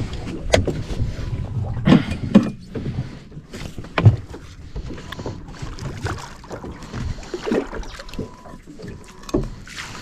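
Clunks and sharp knocks of tackle and a landing net against an aluminium boat's hull while a hooked barramundi is played on a bent rod beside the boat. The loudest knocks come in the first four seconds, then quieter handling noises follow.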